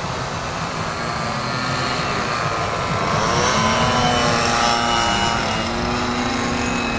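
Several small model-aircraft engines of 46 to 55 size buzzing as the Panic aerobatic biplanes fly a display. Their pitch rises and falls as the planes pass about three to five seconds in, over a steady low rumble.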